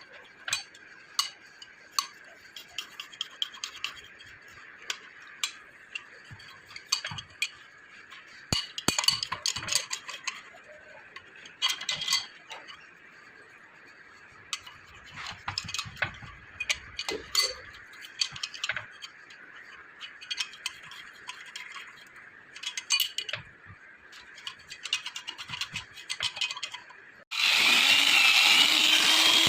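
Metal tools and engine parts clinking and scraping in short, irregular bursts during hand work on an engine cylinder head. Near the end a power tool suddenly starts and runs loudly with a steady whine.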